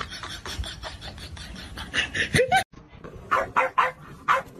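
A short falling cry about two and a half seconds in. After a brief break come four quick, short dog barks.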